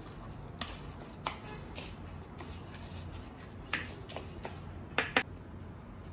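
Scattered light clicks and taps of a wooden chopstick against a plastic funnel, pushing glutinous rice and pig blood filling down into a sausage casing, over a low steady hum. The two sharpest clicks come close together about five seconds in.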